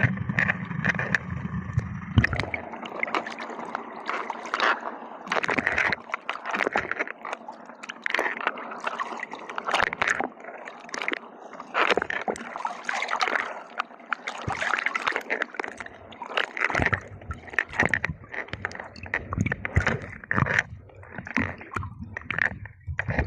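Water sloshing and splashing in uneven surges.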